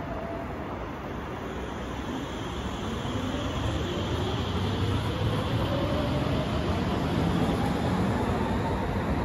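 Vienna U6 metro train pulling out of the station, its electric traction motors whining in a steadily rising pitch as it speeds up. The rolling noise grows louder from about three seconds in.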